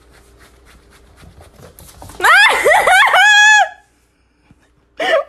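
Soft steps on a floor, then about two seconds in a loud run of high-pitched squeals, short rising cries ending in one held note: a person shrieking with laughter as a kitten clings to their jeans leg.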